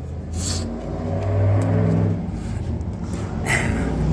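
A motor or engine runs steadily with a low hum, and two short hisses come about half a second in and near the end.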